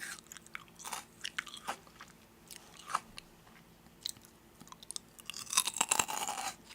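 Crisp food being bitten and chewed close up: scattered crunches and crackles, thickening into a dense run of crunching near the end.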